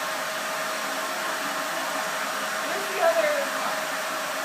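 Vacuum cleaner running steadily: a constant motor hum with a high whine. A short falling voice-like sound comes about three seconds in.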